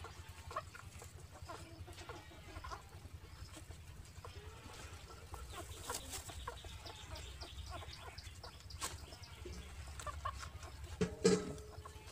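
Faint animal sounds: scattered soft clicks and short calls, with one louder short call near the end.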